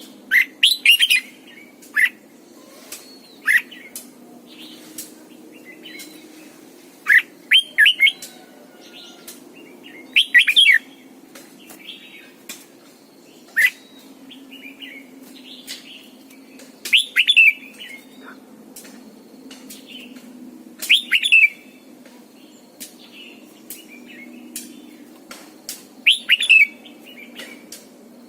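Red-whiskered bulbul singing: short, loud phrases of quick sweeping whistles, one every few seconds.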